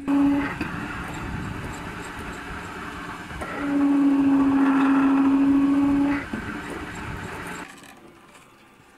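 Old rod-pump oil well working: the polished pump rod rubbing and clanking through its oily stuffing box. A loud, steady squeal is held for about two and a half seconds near the middle, and the noise fades near the end.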